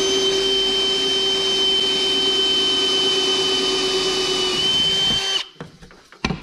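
Hand-held power drill boring a small hole through a thin sheet-steel panel, its motor giving a steady, even whine that stops about five seconds in. A couple of short knocks follow near the end.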